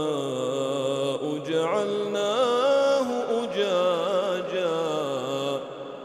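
A man's voice chanting Quran recitation in a slow, melodic tajweed style, drawing out long held notes with ornamented pitch bends, with a short breath pause near the end.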